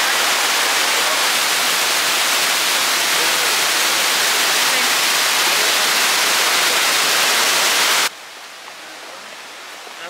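Water pouring down a multi-tiered waterfall over rock steps, a loud, steady rush. It cuts off abruptly about eight seconds in, leaving a much quieter background.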